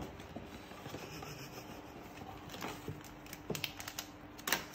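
Faint rustling and crinkling of plastic snack packets and a paper gift bag being handled. The crackles are scattered and short, with a sharper one near the end.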